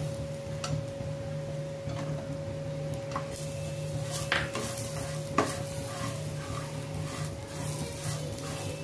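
Perforated steel spatula stirring grated coconut, dry fruits and raisins roasting in ghee in a pan: steady scraping with several sharper knocks against the pan in the first two-thirds, over a light sizzle and a steady hum.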